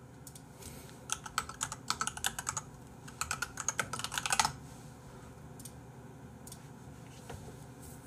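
Typing on a computer keyboard: a quick run of keystrokes from about a second in to about four and a half seconds in, then a few scattered clicks.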